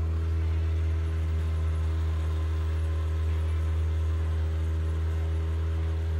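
A sailboat's engine running steadily under way, a constant low drone that does not change pitch.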